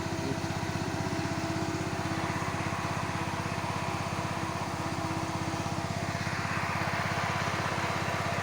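Tractor engine running steadily while ploughing, a fast, even low pulse, with more hissing noise joining about six seconds in.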